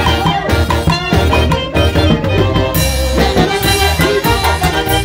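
A live Peruvian huayno orquesta playing dance music: saxophones and brass carrying the melody over a drum kit with a steady bass beat, the cymbals growing stronger a little past halfway.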